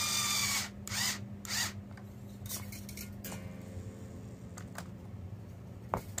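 Steel guitar string being drawn by hand through the tuning pegs: a loud rasping scrape at the start, two shorter scrapes soon after, then quieter handling and a sharp click near the end.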